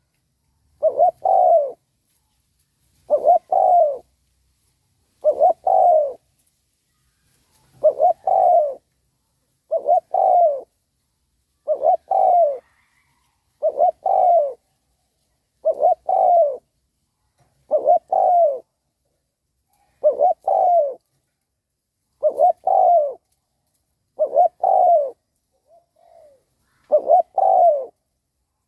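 Spotted dove (cu gáy) decoy bird cooing, a short coo phrase repeated about every two seconds. It is a lure call meant to draw wild doves in.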